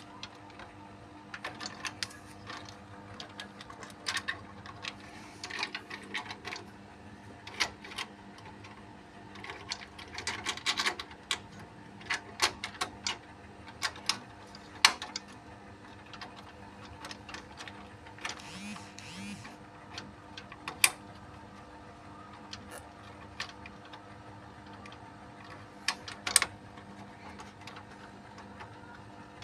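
Irregular plastic clicks, taps and scraping as a CPU cooler is fitted onto a motherboard, its corner fasteners clicking into place around the socket.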